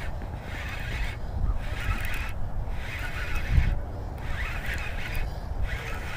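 Geese honking over and over, a string of calls about a second apart, over a low rumbling noise.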